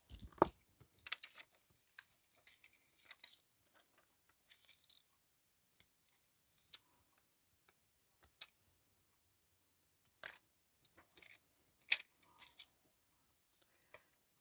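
Faint, scattered clicks and light rustles from handling small craft supplies: a plastic sheet of adhesive rhinestones being picked at. The few sharper ticks come near the end.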